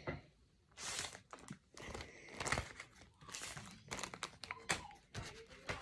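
Crinkling and rustling of handled objects, in irregular bursts.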